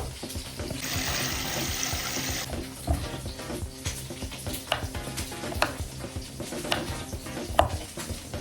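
Food frying in a pan, with a burst of loud sizzling about a second in that lasts under two seconds, then a utensil stirring and clicking against the pan.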